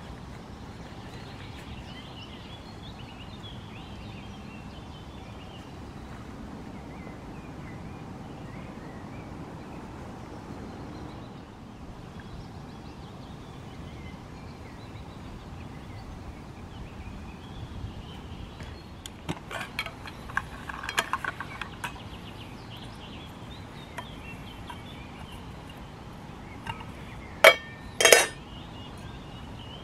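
Metal camp cookware being handled: a run of small clinks and rattles, then two sharp ringing clanks near the end.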